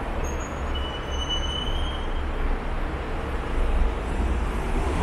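City traffic on a wet street: a steady hiss and low rumble of passing vehicles, with a brief thin high whine about a second in.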